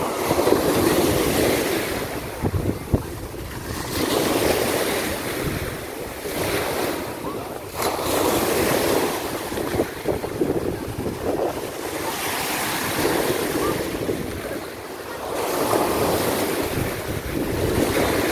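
Small waves of the Sea of Azov breaking and washing over the sandy shallows, the wash swelling and fading every three to four seconds, with wind buffeting the microphone and a couple of brief knocks.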